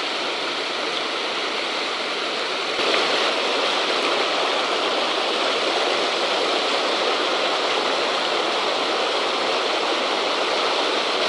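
River water rushing over a low weir and between concrete tetrapod blocks: a steady white-water rush that grows a little louder about three seconds in.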